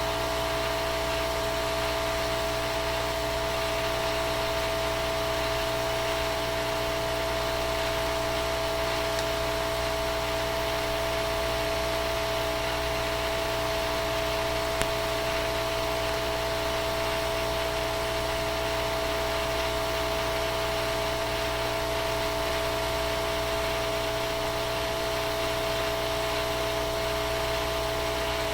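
Steady whirring of a small electric motor with a constant high whine over a hiss, unchanging throughout, with one sharp click about halfway through.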